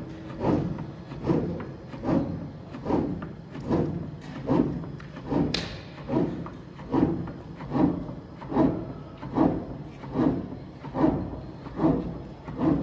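Digital knife CNC cutting machine working on levelling its table: a steady mechanical rhythm of thuds, a little more than one a second, with one sharp click about halfway through.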